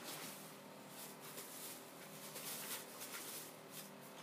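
Quiet room tone with a few faint soft clicks and rustles, like small objects being handled.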